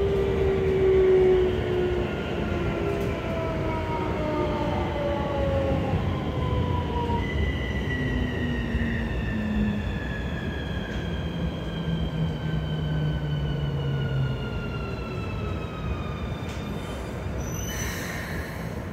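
Keikyu New 1000 series train's Siemens IGBT VVVF traction inverter whining in several tones that fall steadily in pitch as the train slows under braking, over the rumble of wheels on rails heard from inside the car. A brief hiss comes near the end.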